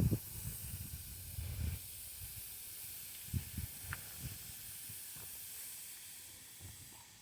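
Thinly sliced flank steak sizzling on a hot barbecue grill: a steady hiss with a few faint pops, easing off slightly near the end.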